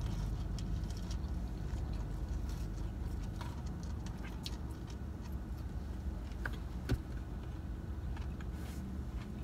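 Steady low rumble of a car idling, heard from inside its cabin, with a few faint clicks about four and a half and seven seconds in.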